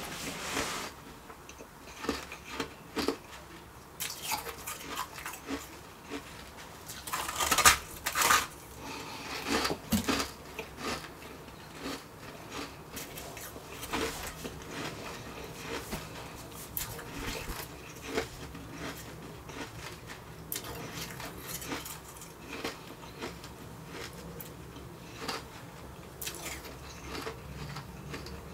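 Refrozen shaved ice crunching as it is bitten and chewed close to the microphone: irregular sharp crunches throughout, the loudest a cluster about seven to eight seconds in and another about ten seconds in.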